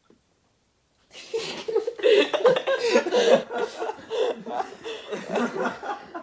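Men laughing hard, breaking out suddenly about a second in after a brief silence and going on in loud, uneven bursts.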